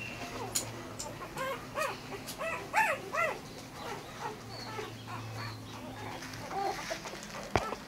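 Ten-day-old Bernese Mountain Dog puppies squeaking and whimpering: a quick run of about five short, high squeaks that rise and fall in pitch, starting about a second and a half in, then fainter squeaks near the end.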